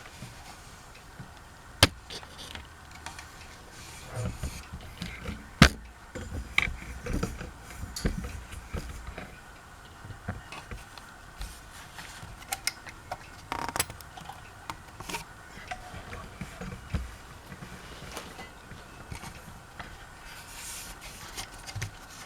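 Ceiling fan parts being handled: scattered clicks and knocks with rubbing, including a sharp knock about two seconds in and a louder one at about five and a half seconds.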